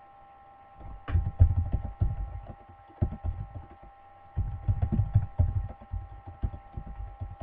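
Computer keyboard being typed on: a fast, irregular run of dull keystroke thumps in two bursts with a short pause between, over a steady faint electrical hum.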